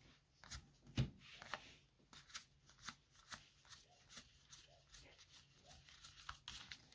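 Magic: The Gathering cards being flipped through and handled by hand: a faint, irregular run of soft clicks and rustles.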